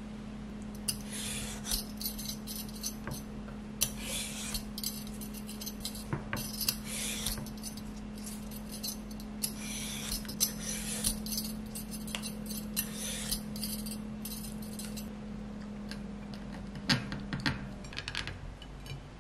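Clinks and clatter of tableware being handled, with bursts of rustling, over a steady low hum; a few sharper clicks near the end.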